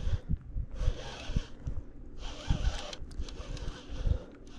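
Baitcasting reel whirring in three spurts of about a second each as a hooked white bass is fought and line is cranked in, with irregular low thumps underneath.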